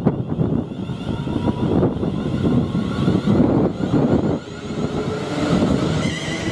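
Train passing at speed on a main line: a loud, steady rushing rumble of wheels and air, with a high hiss building from about two seconds in.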